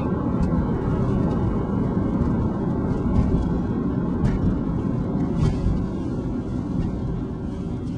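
Steady low rumble of a car driving, heard from inside the cabin, with a few faint clicks.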